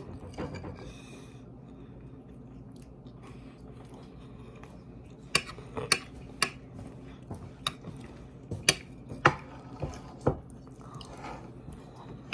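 A person chewing a mouthful of food, with sharp clicks of a metal fork, about a dozen of them, mostly in the second half.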